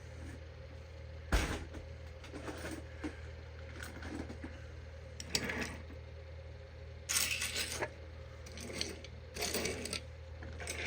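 Small die-cast metal toy cement mixers being handled and set down on a surface: light metallic clinks and clatters, with one sharp knock about a second and a half in.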